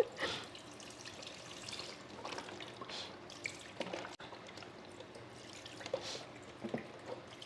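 Faint liquid pouring and dripping, broken up by a few light clicks.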